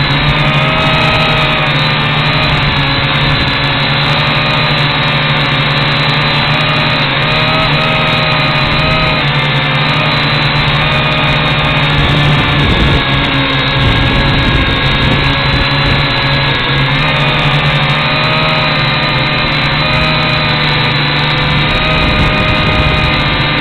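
Large FPV quadcopter's electric motors and propellers running steadily, their pitch wavering slowly up and down as the throttle changes.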